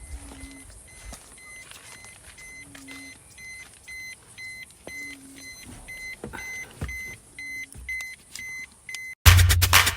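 Faint high electronic beep repeating about twice a second. Loud electronic music with a beat cuts in suddenly near the end.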